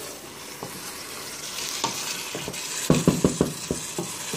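Chicken pieces and onions sizzling as they fry in a stainless steel pot, stirred and turned with a spoon. A quick run of loud spoon knocks and scrapes against the pot comes about three seconds in.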